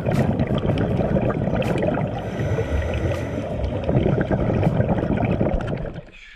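Muffled underwater rumble and gurgle of moving water heard through an action camera's waterproof housing, with scattered sharp clicks. It cuts off abruptly near the end.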